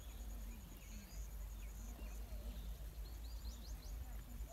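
Quiet rural outdoor ambience: a steady low rumble with a faint, high, pulsing tone over it, and a few quick bird chirps about three and a half seconds in.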